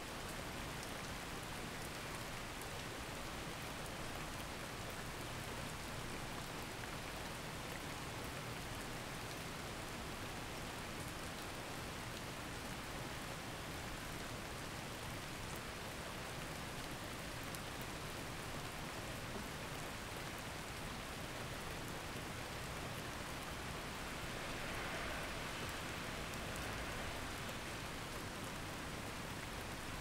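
Steady, even rain-like noise with no breaks or distinct events, swelling slightly about three quarters of the way through.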